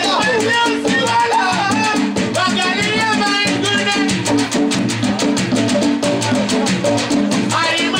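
Loud music with a singing voice over a steady drum beat and bass, played through a sound system.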